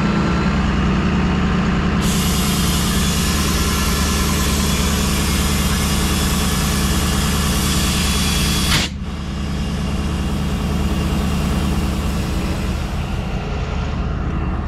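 Portable air compressor running with a steady drone while air is fed through its hose into a flatbed trailer's flat tire. A loud hiss of air starts about two seconds in and stops abruptly with a click about nine seconds in, followed by a softer hiss.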